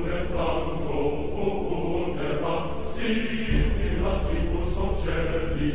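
Background music with chant-like, choir-style vocals over a deep bass; the bass comes in stronger a little past halfway.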